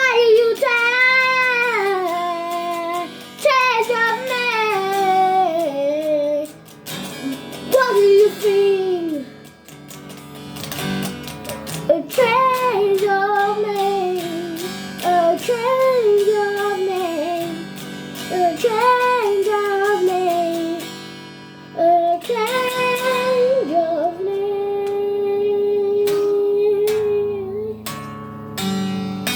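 Music: a high voice sings a wavering melody with vibrato over plucked guitar, holding one long note near the end.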